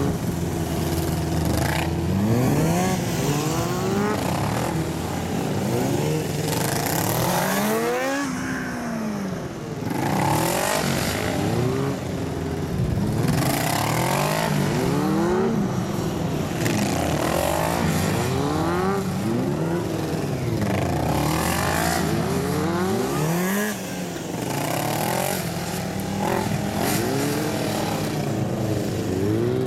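Motorcycle engine revving up and falling back again and again, in short bursts of throttle between braking for tight turns around cones. The pitch climbs and drops every second or two.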